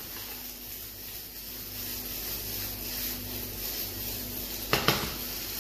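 Macaroni and diced turkey being tossed in a hot frying pan: a soft steady hiss and rustle, with two sharp knocks close together near the end.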